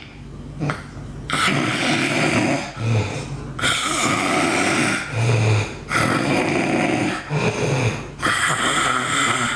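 A girl snoring loudly: a run of long snores of about two seconds each, back to back, beginning about a second in, some with a deep low rumble.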